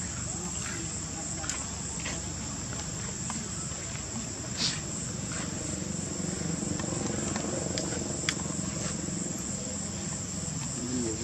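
Steady high-pitched chirring of insects, with a few faint clicks and a sharper tick about eight seconds in.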